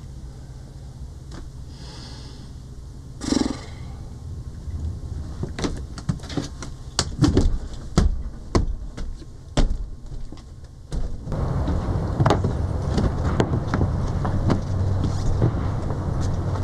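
Knocks and clatter from rummaging through a cupboard in a boat's galley, over a low steady hum. About two-thirds of the way in, this gives way to a louder, even outdoor noise.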